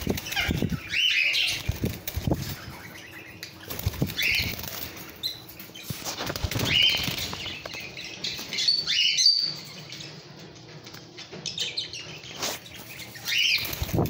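Caged plum-headed parakeets flapping and scrabbling against the cage wire, with bouts of short high chirping calls about five times.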